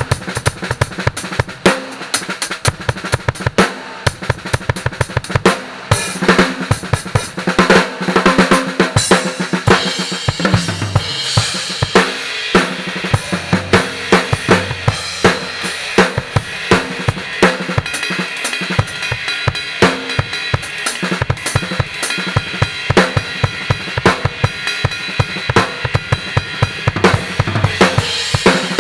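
Acoustic drum kit played hard and fast, with bass drum, snare and Anatolian cymbals crashing and washing over dense strokes: a sound test of the kit and its cymbals.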